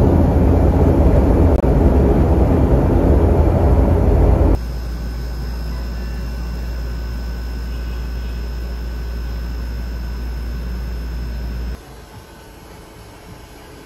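Loud engine noise and rumble inside a passenger plane's cabin as it speeds along the runway, cutting off abruptly about four and a half seconds in. A quieter steady hum with a faint high whine follows, then drops to low room tone near the end.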